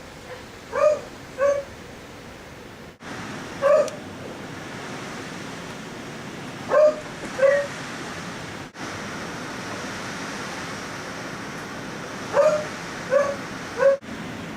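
A dog barking in short groups of two or three, eight barks in all, over strong wind blowing steadily. The owner thinks the dog may be barking out of fear of the gale.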